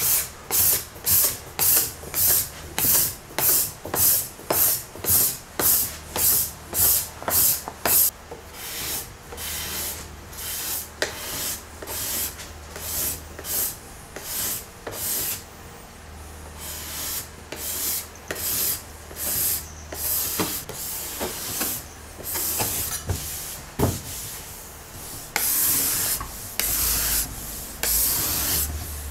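Steel card scraper pushed in short strokes across a hardwood desk top, a quick, even run of scrapes about two a second at first, then fainter, irregular strokes, and longer, louder strokes near the end.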